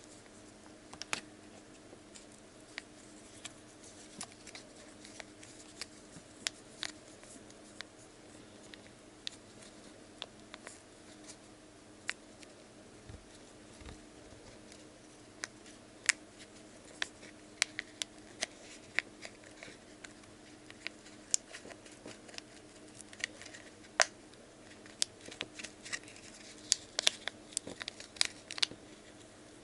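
Light clicks and crinkles of a small foil sachet being shaken and tapped as slime powder pours into a plastic cup, busier near the end, over a faint steady hum.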